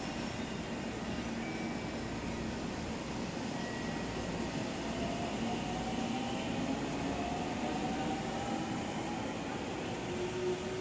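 Electric commuter train starting to move: a faint motor whine rises slowly in pitch over a steady rumble.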